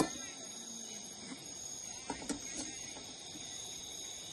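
Steady high-pitched insect chirring, with a sharp click at the start and a few light knocks a little after two seconds in.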